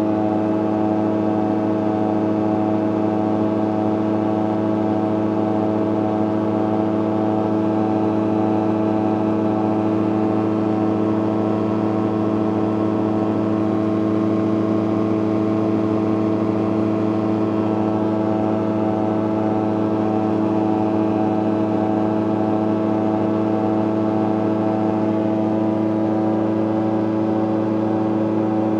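CGS Hawk ultralight's engine and propeller droning steadily in cruise flight, heard from inside the cockpit, the tachometer reading about 5,650 rpm. The pitch and level hold constant throughout.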